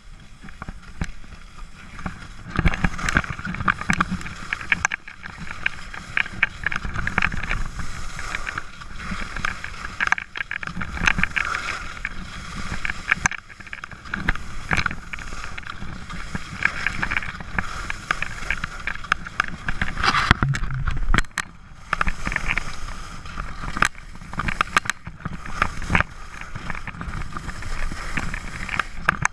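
Skis sliding and carving over soft snow, an uneven hiss and scrape, with wind rushing over the microphone.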